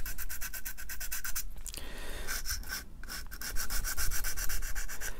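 Coarse sanding stick rubbed back and forth over a plastic model-kit part in quick, short strokes, with two brief pauses, sanding down a raised mould seam line.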